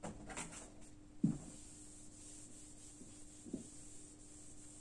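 Whiteboard eraser rubbing across a whiteboard in a few short strokes, followed by a soft thump about a second in and a fainter one later, over a steady low hum.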